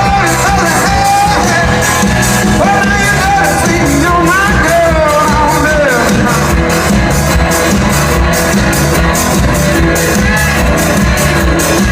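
Live country-rock band playing loud: a steady drum beat and bass under a lead line of bending, sliding notes.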